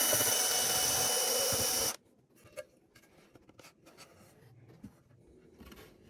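A loud steady hiss that cuts off abruptly about two seconds in, followed by faint scraping and handling noises.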